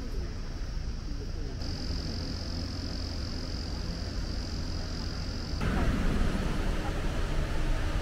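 Outdoor background sound: a steady low rumble with a steady high-pitched buzz over it, which stops abruptly about five and a half seconds in, when the background turns louder and fuller.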